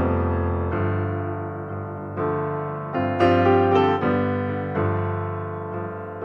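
Background piano music: slow chords struck every second or so, each ringing and fading away.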